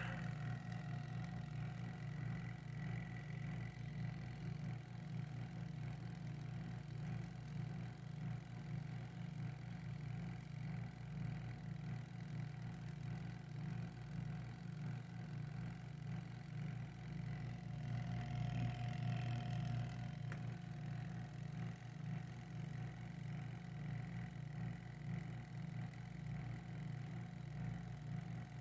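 Washing-machine motor running unloaded on a bench test after rewiring, a steady electric hum with a faint higher whine, swelling briefly about two-thirds of the way through.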